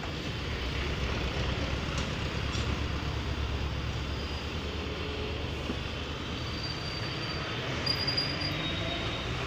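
Steady low rumble of road traffic, with a few short high-pitched squeals about two-thirds of the way through.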